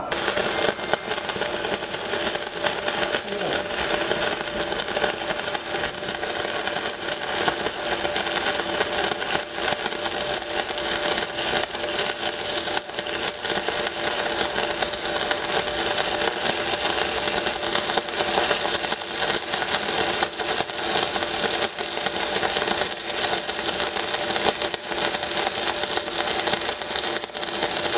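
Stick-welding arc from a JASIC Novoarc 200K inverter welder burning a 4 mm electrode: a steady crackling sizzle that starts right away and holds without breaking. The arc's quick, sure start is the welder's hot-start function at work.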